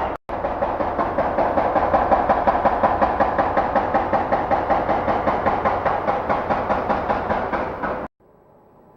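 Demolition hammer pounding the concrete of a bridge being torn down: rapid, steady, loud blows at about six a second, with a brief break just after the start, stopping abruptly about eight seconds in.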